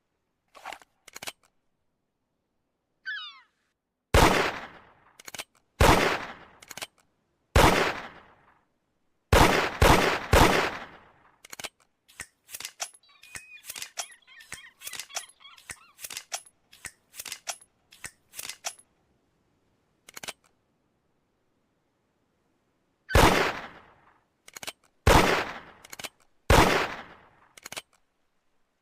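Colt single action revolver sound effect: the hammer clicks back, then six loud shots with ringing echo tails, the last three in quick succession. A long run of small metallic clicks follows, like the cylinder being turned and reloaded, and near the end three more shots with hammer clicks between them.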